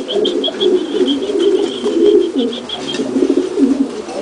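Buchón Gaditano pouter pigeons cooing continuously, a dense low warbling. Over it, for about the first three seconds, a high rapid chirping runs at about five chirps a second and then stops.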